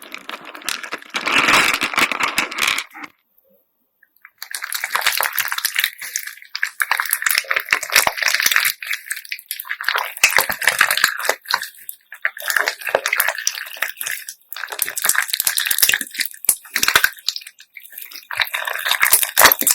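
Slime packed with beads being squeezed and kneaded by hand: wet squelching with dense clicking and clattering of the beads, in bursts a few seconds long. There is a short silent break about three seconds in.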